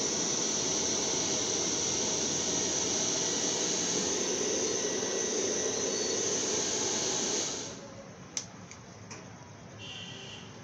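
Hair dryer blowing with a steady rushing noise, switched off about seven and a half seconds in, followed by a sharp click and a few faint ticks.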